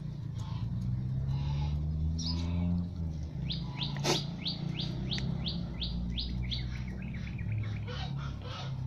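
A songbird calling a run of about ten quick falling notes, roughly three a second, then breaking into a faster trill, over a steady low rumble. A single sharp click sounds about four seconds in.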